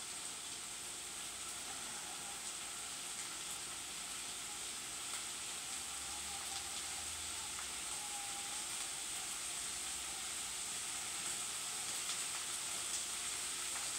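Corned beef hash frying in a skillet on high heat: a steady sizzle with faint scattered crackles.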